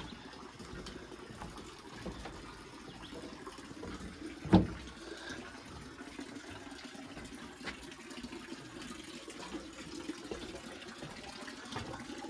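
Water running steadily, with a sharp knock about four and a half seconds in.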